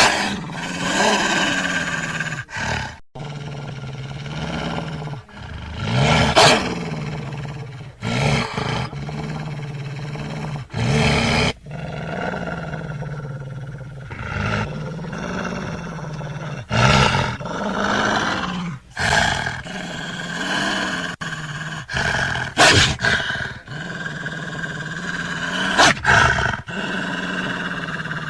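Buffalo bellowing: a series of long, low calls, each a few seconds long, with short breaks between them.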